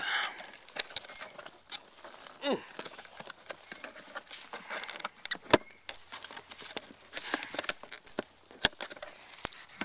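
Rustling of shrub branches and scattered clicks and knocks of the camera being handled against a plastic panel box, with a longer rustle about seven seconds in.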